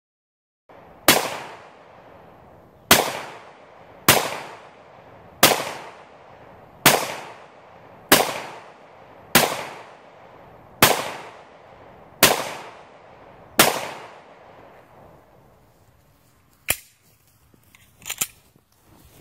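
Ten gunshots fired one after another at a steady pace, about one every 1.2 to 1.5 seconds, each with a short echo dying away behind it. A few fainter sharp clicks follow near the end.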